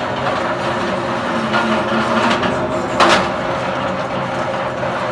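Electric automatic scrap wire stripper machine (Steel Dragon Tools WRA40R) running steadily with a motor hum as twisted battery cable is fed through its rollers and blade, with one brief loud crackling burst about three seconds in.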